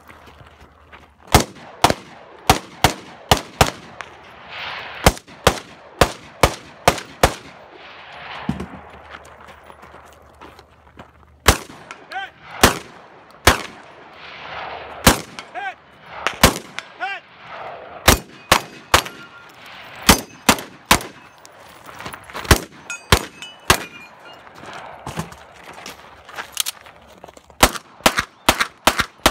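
Rapid gunfire from a 3-gun competition stage, dozens of sharp shots in quick strings with short pauses between. Rifle shots come early, about two a second, and 9mm 2011 pistol shots come near the end.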